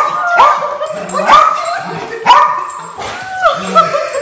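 Dog greeting its owner with loud, excited high-pitched whining yelps, about six in a row, each starting sharply and holding its pitch briefly.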